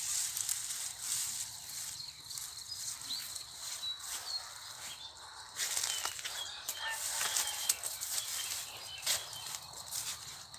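Countryside ambience: a steady high insect drone, with small birds chirping now and then and bursts of rustling in dry vegetation.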